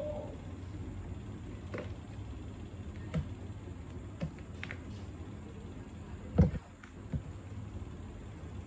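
Scattered small clicks and knocks as popsicle sticks, wires and plastic parts of a toy airplane are handled on a workbench, the loudest knock about two-thirds of the way through, over a steady low hum.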